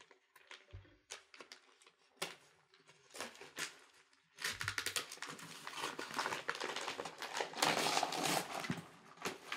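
Paper rustling and crinkling as a wrapped package is opened: a few scattered small clicks and rustles at first, then, about halfway through, continuous louder crinkling and tearing of the wrapping paper.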